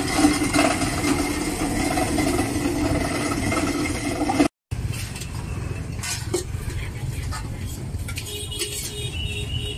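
Busy street-food stall ambience: a steady traffic rumble with scattered clinks of utensils and dishes. The sound drops out for a moment about halfway through.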